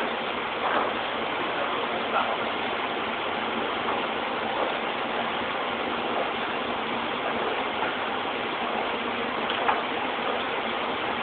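Steady factory din: a dense rushing noise of machinery and air extraction, with a few short metallic clanks of cast metal parts being handled, the loudest near the end.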